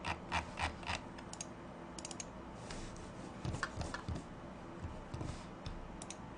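Typing on a computer keyboard: a quick run of keystrokes in the first second, a few more about two seconds in, then scattered single clicks.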